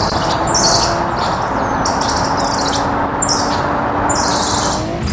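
Steady rushing spray of water over a muddy toy car being washed, with a faint steady hum beneath. Birds chirp repeatedly over it, a short call every half second to a second.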